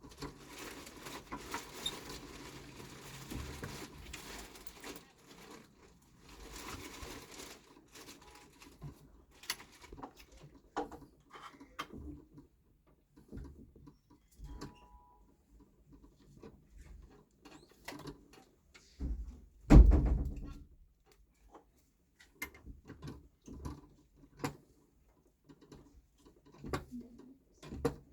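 Countersunk screws being fastened by hand into a metal monitor-arm base: rustling handling noise at first, then scattered small clicks and scrapes of metal parts, with one loud thump about two-thirds of the way through.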